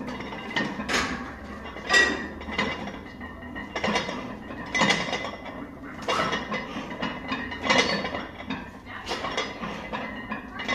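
Iron weight plates clinking and rattling on a heavily loaded barbell during bench press reps, a sharp metal clink every second or so.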